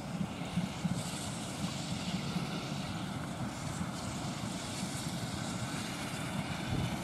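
Ex-Ministry of Defence saddle-tank steam locomotive working a four-coach train, heard from across a field: a steady low rumble of the engine and the coaches running, with a faint pulse to it.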